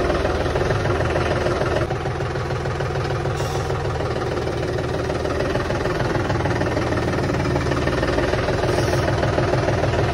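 John Deere tractor's diesel engine running steadily at low revs, heard from the driver's seat as the tractor moves off slowly.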